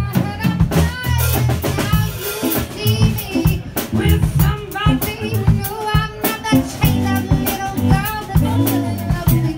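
Live band music: a drum kit keeping a steady beat while a woman sings into a microphone.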